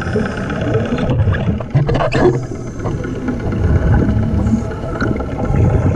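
Underwater, a steady engine drone of the kind a boat engine or compressor makes, with the rush and bubbling of a diver's exhaled air; a brief rising rush about two seconds in.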